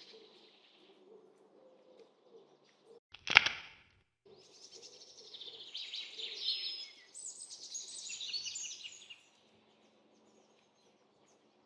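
A short whoosh a little over three seconds in, then birds chirping in quick, high twittering calls for about four seconds over a faint background hush.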